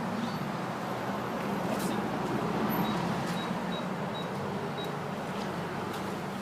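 Steady room hum, like an air-conditioning or ventilation unit running. Over it, a door keypad lock gives a run of about five faint, short, high beeps about half a second apart, starting about three seconds in.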